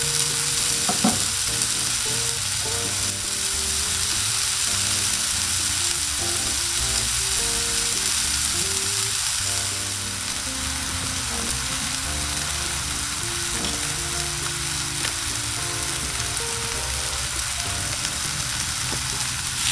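New York strip steaks sizzling steadily as they sear on the hot steel plate of a Blackstone 22-inch gas griddle, now on their second side after the flip.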